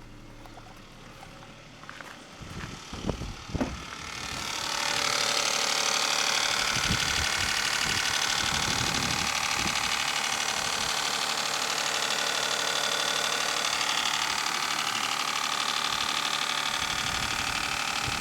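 Daihatsu Cuore L251's 1.0-litre EJ-VE three-cylinder petrol engine idling cold, with a diesel-like clatter from the left side of the engine. Muffled at first with a few thumps about two to four seconds in, then much louder and steady from about four seconds in.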